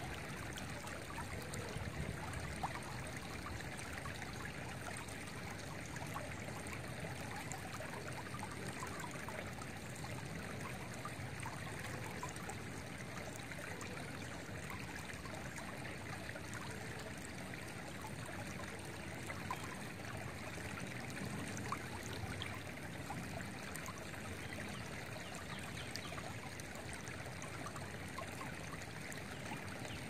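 Shallow, rocky creek flowing and trickling over stones and a riffle, a steady babble of running water.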